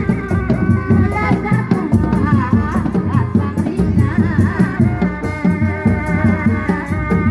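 Kuda lumping performance music from a traditional West Javanese ensemble: dense, fast drumming under a wavering, ornamented high melody, with held tones behind it.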